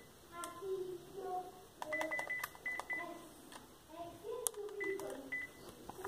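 NEC e616V flip phone's keypad: short high key beeps and button clicks as its menu is scrolled, in a cluster about two seconds in and again about five seconds in. Faint voices murmur underneath.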